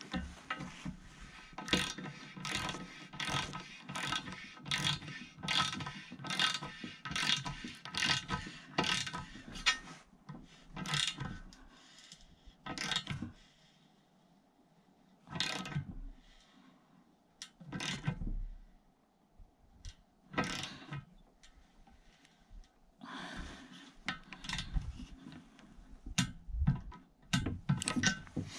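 Ratcheting torque wrench clicking in quick back-and-forth strokes, about twice a second, as the valve-stem nut of a TPMS sensor is tightened on an aluminium wheel rim. After about ten seconds it turns into scattered clicks and knocks.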